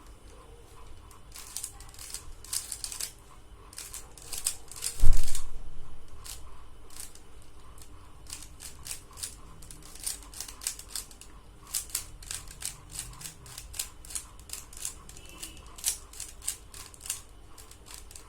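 Plastic Rubik's cube being turned quickly by hand, its layers clicking in rapid, irregular runs, denser in the second half. A single loud thump about five seconds in.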